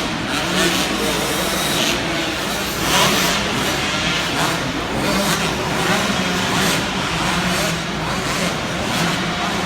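Motocross dirt bike engines running and revving on an indoor arenacross track, with a few brief swells in pitch and level over a steady engine hum.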